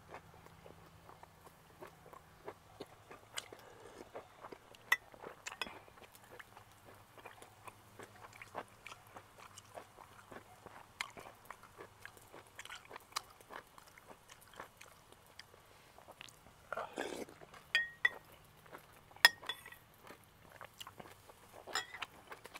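Quiet eating sounds: chewing and mouth noises with scattered short clicks, among them a metal spoon tapping a glass bowl of soup.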